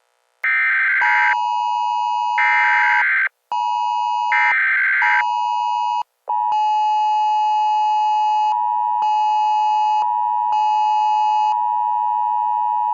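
Emergency Alert System tones: three short, harsh buzzing bursts of the digital alert header over a steady electronic two-tone attention signal. The attention tone drops out briefly twice, then holds steady and loud.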